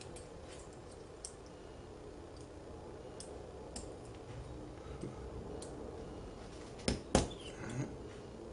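Small metal ticks and clicks of a tool prying at a blade-grip bearing held in with retaining compound, with two sharp clicks about seven seconds in followed by a short scrape. A steady low hum runs underneath.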